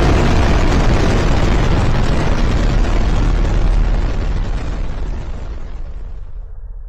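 A loud, deep rumbling roar sound effect, a dense noisy rush with heavy bass that holds steady and then slowly fades away over the last few seconds.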